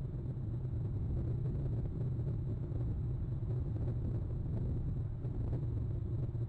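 A steady low rumble with no distinct sounds standing out of it.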